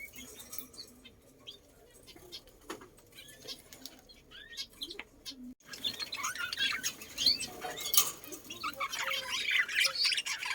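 Birds chirping: scattered short chirps and a few clicks at first, then after about five and a half seconds a louder, dense chorus of many birds chirping over one another.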